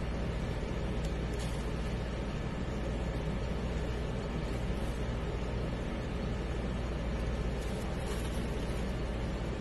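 A steady low hum and rumble, with a few faint, short rustles.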